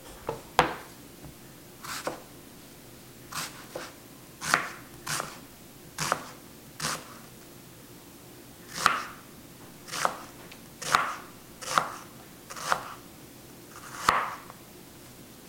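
Chef's knife slicing a large onion thin on a plastic cutting board, each cut ending in a sharp knock of the blade on the board, irregularly about once a second with a short pause about halfway. At the start the cutting board is set down on the granite counter with a couple of sharper knocks.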